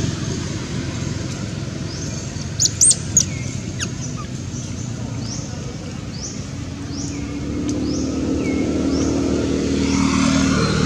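Steady low engine rumble of distant motor traffic, swelling toward the end, with a few sharp high chirps about three seconds in and a string of short, falling high-pitched calls, about two a second, through the second half.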